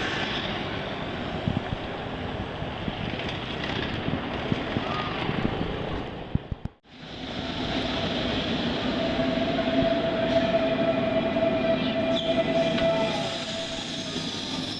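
A train running, a steady rumble with clatter. It cuts out sharply about halfway through and resumes. In the second part a steady high tone sounds over the running noise for a few seconds.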